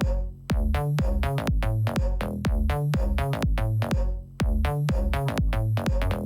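Background electronic music with a steady drum-machine beat and heavy bass.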